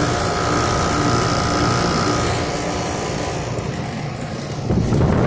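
2005 Rheem Classic 2.5-ton R22 air conditioner running steadily: condenser fan whoosh with compressor hum and several steady tones. A louder low rumble comes in near the end.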